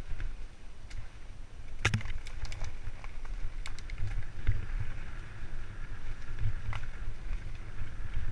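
Wind buffeting the microphone and tyre noise from a Surly bike ridden fast down a dirt singletrack, broken by sharp rattles and knocks from the bike over bumps. The loudest knock comes about two seconds in.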